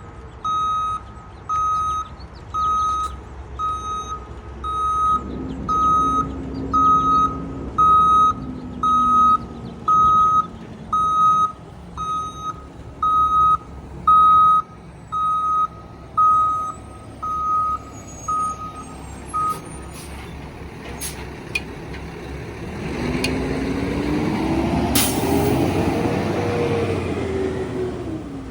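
Heavy construction vehicle's reversing alarm beeping about once a second over a diesel engine running; the beeping stops about two-thirds through. Near the end the engine revs up and back down, with one brief sharp noise as it peaks.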